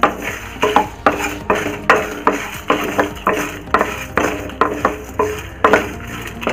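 Wooden spatula scraping and knocking against a nonstick kadai, stirring dry-roasting whole spices and curry leaves, in quick strokes about two or three a second.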